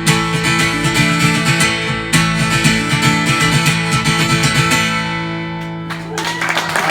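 Live band's instrumental ending of a country-rock song, led by strummed acoustic guitar, settling on a held final chord that fades out. About six seconds in the music stops and the crowd starts applauding.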